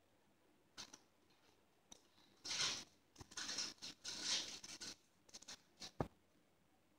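Close, dry scratching and crackling in several short bursts, loudest from about two and a half to five seconds in, with a single sharp click about six seconds in.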